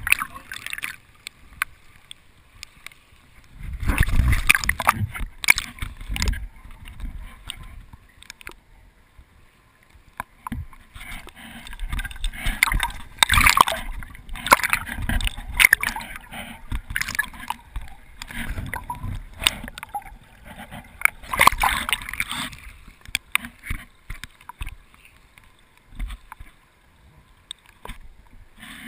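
River water gurgling, sloshing and splashing around a camera that is dipped at and below the surface of a fast, stony river, so the sound is muffled. It comes in irregular surges with crackling and a low rumble.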